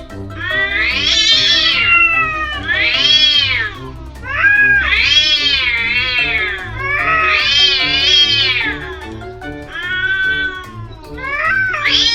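Cats caterwauling in the drawn-out yowls of a standoff before a fight: about six long calls, each rising and then falling in pitch, over background music.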